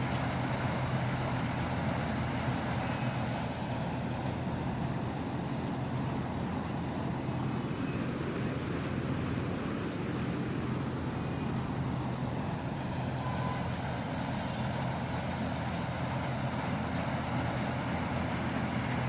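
Air-conditioning machinery running steadily: a constant low electrical hum under an even, fan-like hiss.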